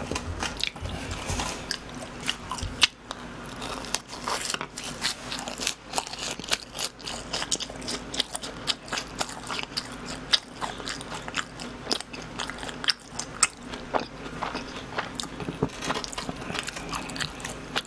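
Close-miked chewing and biting of BHC cheese balls, fried glutinous-rice dough balls filled with cheese: a dense run of small crunchy clicks and wet mouth sounds, with one sharper snap about three seconds in.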